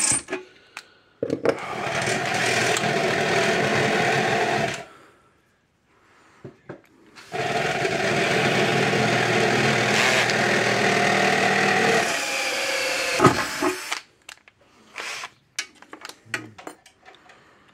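Power drill running into a fence charger's sheet-metal housing in two long steady runs, the second trailing off weaker, with short clicks and taps between and after.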